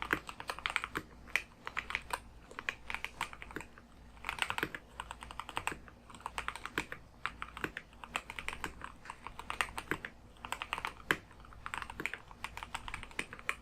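Typing on a Keychron K2 HE keyboard with Gateron magnetic Hall effect switches: quick, irregular runs of key clicks and clacks, now and then pausing briefly between bursts.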